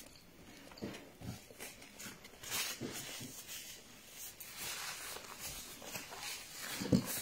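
Faint sounds of someone eating at a table: soft mouth noises and a paper napkin rubbed over the mouth, with a short low vocal sound near the end.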